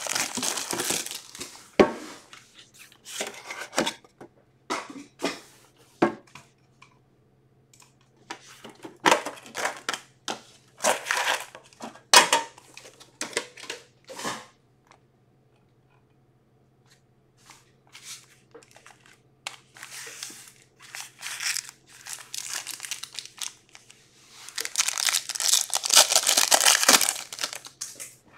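Foil hockey card packs and their plastic wrapping being torn open and crinkled by hand, in a run of short rustling bursts, with a longer stretch of tearing near the end.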